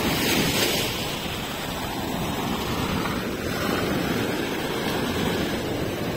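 Sea surf breaking and washing up the sand at the shoreline: a steady rush of water, a little louder in the first second, with wind on the microphone.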